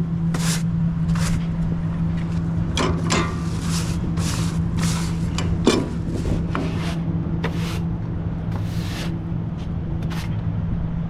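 Semi truck's diesel engine idling steadily, with repeated short hissing bursts over it.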